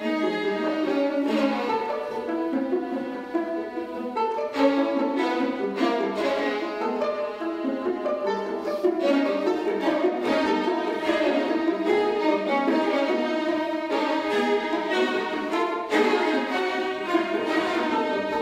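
A 22-piece string orchestra of violins, violas and cellos playing busy, densely layered lines, with sharply accented attacks every few seconds.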